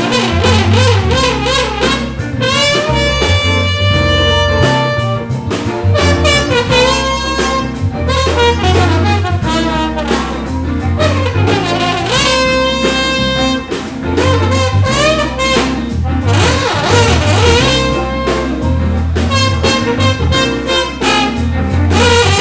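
Live blues band jamming, with trombone, harmonica and electric guitar playing long held, sometimes wavering notes over a steady bass line.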